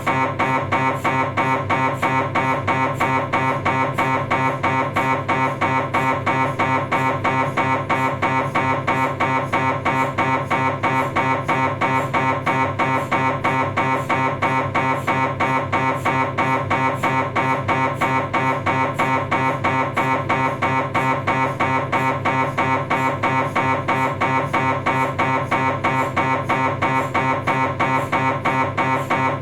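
Philips 1.5 T MRI scanner's gradient coils running a STIR sagittal sequence: a loud, steady, machine-like buzzing tone pulsing at a fast, even rhythm.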